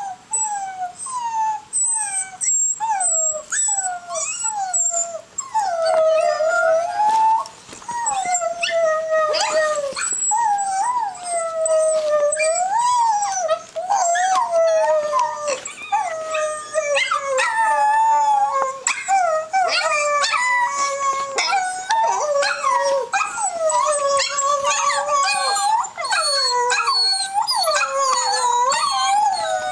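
A dachshund whining and howling, played back from a video through laptop speakers: a long string of wavering cries that slide up and down in pitch, broken by short pauses in the first few seconds and then almost without a break.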